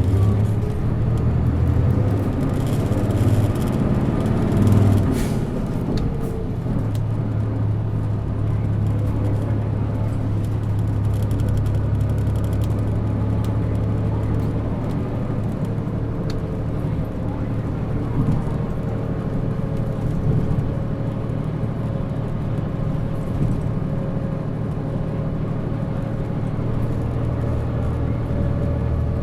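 Isuzu Erga city bus's diesel engine heard from inside the cabin, its note rising as the bus accelerates over the first several seconds, then running at a steady pitch as it cruises.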